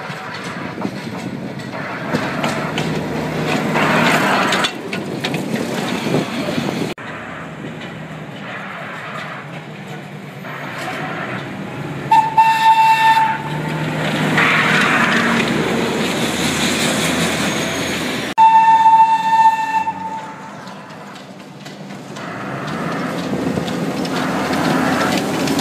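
Botchan Ressha, a diesel-powered replica of a small steam tram locomotive, running on the rails with a rushing noise, and sounding its whistle twice: two single steady high blasts, each over a second long, about six seconds apart, signalling its departure.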